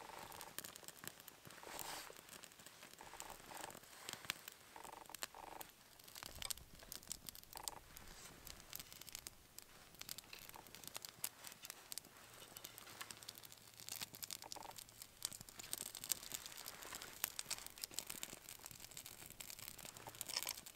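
Small newly lit campfire of twigs and dry grass crackling with frequent quick pops, while sticks are laid on by hand with light rustles and clicks.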